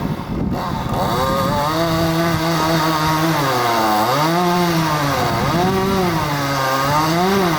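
Two-stroke chainsaw running hard while cutting through a tree limb. It builds up over the first second or so and holds a steady pitch, then its pitch repeatedly dips and recovers, about every second and a half, as it works through the wood.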